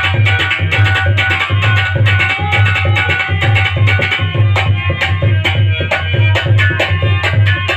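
Instrumental interlude of a rural Hindi bhajan: a hand drum keeps a quick, steady rhythm under a held melody line, with sharp metallic clicks of a chimta (fire-tong jingles) on the beats.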